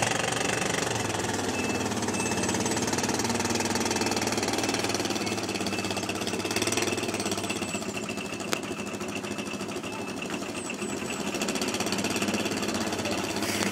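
ATV engines idling steadily: an Arctic Cat 700 Diesel and a Suzuki King Quad 750, with a single sharp click about eight and a half seconds in.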